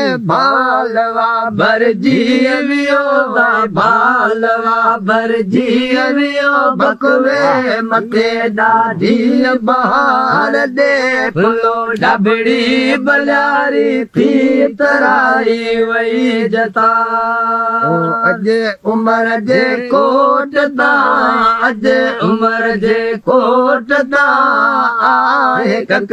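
A solo voice singing a Sindhi folk song in long, wavering, ornamented phrases over a steady drone.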